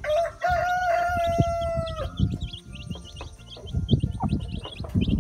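A rooster crows once, a long held call that ends about two seconds in, while chicks peep rapidly and high-pitched throughout.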